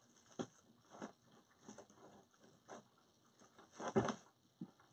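Faint crinkling and rustling of metallic deco mesh being handled, in scattered short crackles, the loudest about four seconds in.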